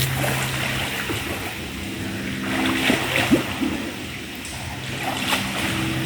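Footsteps splashing and squelching through shallow water and sludgy mud, with a low steady hum underneath and the sound echoing in the tunnel.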